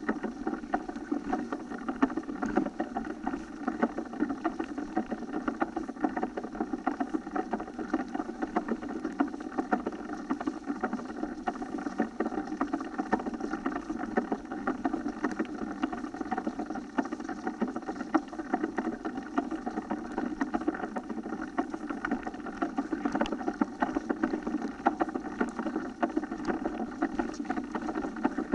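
Mountain bike riding over a rough dirt forest track, heard through the bike-carried camera: a steady muffled rumble of tyres and jolting, with constant small rattles and knocks from the camera mount.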